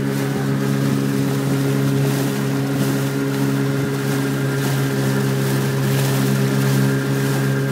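Motorboat engine running steadily under way: an even, unchanging drone with a hiss of wind and water over it.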